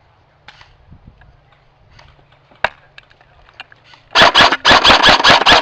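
Airsoft rifle firing a rapid full-auto burst close by, starting about four seconds in, after a few faint clicks and one sharper click.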